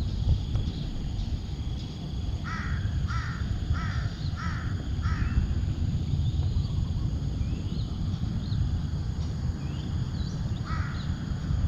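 A bird gives five short harsh calls in quick succession, then one more near the end, over faint high twittering from smaller birds and a steady low rumble.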